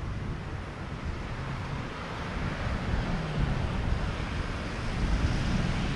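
Boeing 767-300 freighter's twin jet engines at takeoff thrust, heard from a distance as a low rumble that grows louder as the jet rolls down the runway and lifts off. Wind buffets the microphone.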